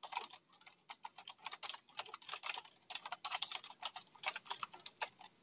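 Computer keyboard typing: a quick, irregular run of keystroke clicks.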